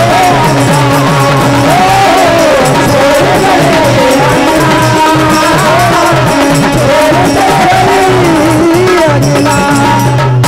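Live Indian folk ensemble playing: a harmonium holds steady drone notes while a drum and small hand-held clappers keep a fast, dense beat. A voice carries a gliding, wavering melody line over it.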